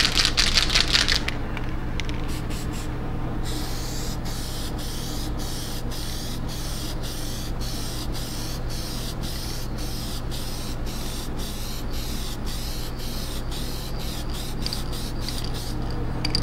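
Aerosol spray can of Plasti Dip glossifier hissing steadily as a heavy gloss coat is sprayed on, with short regular breaks in the hiss. About a second of rapid clicking comes before it.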